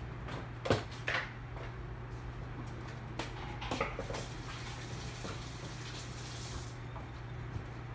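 A few light clicks and knocks of kitchen handling, then a tap running for about two and a half seconds and shutting off, over a steady low hum.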